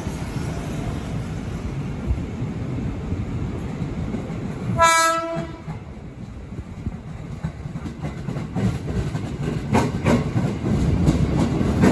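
Train running through with a steady low rumble, one short horn blast about five seconds in, and a few wheel clicks over rail joints near the end.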